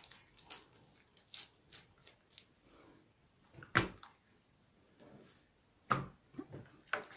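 Kitchen knife cutting up a pike on a wooden cutting board, with scattered short knocks and clicks; the loudest knocks come about four and six seconds in.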